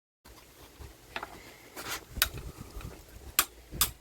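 Sharp metallic taps and clicks from hand tools being worked against a seized engine, a few scattered at first and then coming about two a second.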